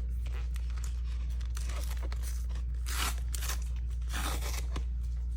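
Paper and plastic packaging rustling and tearing as a mail package is unwrapped by hand, with the loudest rips about three seconds in and again just past four seconds, over a steady low hum.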